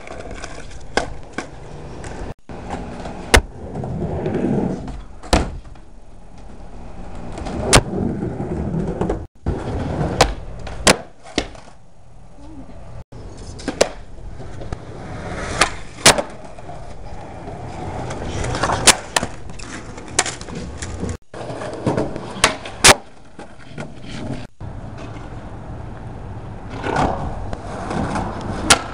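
Skateboard wheels rolling on concrete, with sharp wooden clacks of the board popping and landing every few seconds. The sound breaks off abruptly between short takes.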